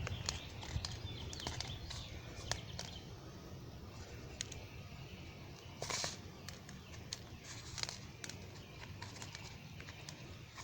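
Light rustling and scattered small ticks of a birdseed-coated cardboard roll and string being handled, with a few louder crackles about six and eight seconds in, over a steady low hum.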